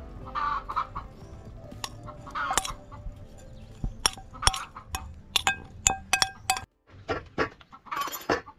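A hen clucking twice, then a metal spoon clinking and scraping on a ceramic plate several times. Near the end, a wooden pestle pounds in a clay mortar at about two strokes a second.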